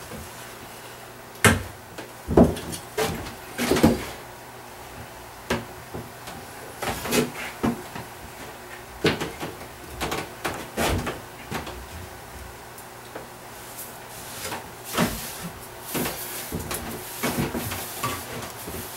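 Irregular short scrapes and sharp knocks of a hand scraper working along a freshly waxed ski, cleaning wax off its edges. The loudest knocks come in the first four seconds.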